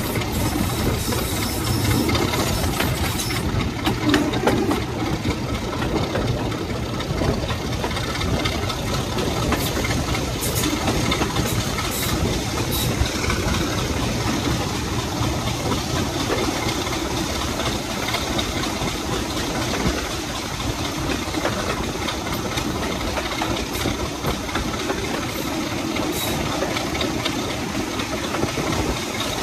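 Class 33 diesel-electric locomotive's Sulzer eight-cylinder diesel engine running steadily as the train moves along, heard from the cab window with wind rushing past and a few brief clicks from the track.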